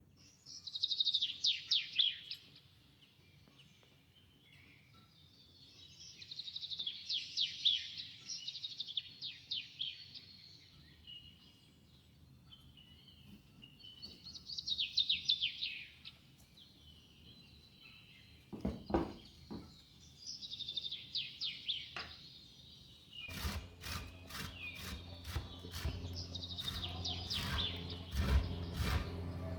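A small songbird singing in rapid trilled phrases, each a second or two long, repeated every few seconds. From about two-thirds of the way in, a low steady hum and a scatter of sharp clicks and knocks join it.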